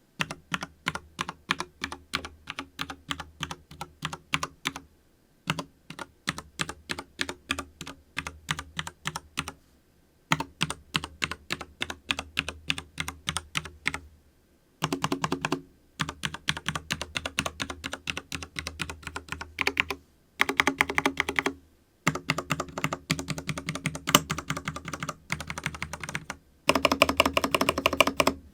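Keystrokes on a FILCO Majestouch mechanical keyboard with Cherry MX Brown switches. For the first half they come as evenly paced single presses, about four or five a second, in groups with short pauses. From about halfway they turn into denser, faster runs of typing.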